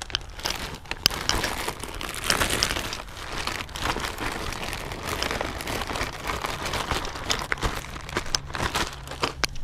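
Plastic parts bag crinkling and rustling as it is handled and opened, with many small sharp crackles.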